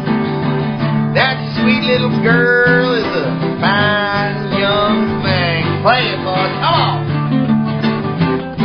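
Acoustic guitar strumming steady chords, with repeated sliding, arching high notes over the top.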